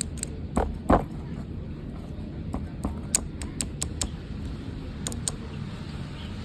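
Irregular sharp clicks and taps from fingers working a handmade paper fidget board, with two louder knocks about half a second and a second in, over a low steady rumble.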